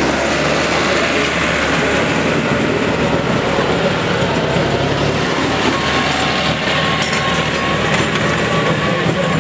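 Diesel farm tractors driving past at close range while grooming a dirt pull track: engines running steadily as the first tractor drags a leveling box over the dirt, with a second tractor passing close behind it.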